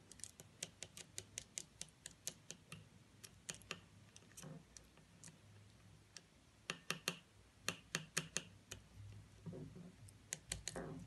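White plastic spoon stirring potassium hydroxide into water in a glass bowl, ticking and clicking faintly and irregularly against the glass several times a second as the lye is mixed up.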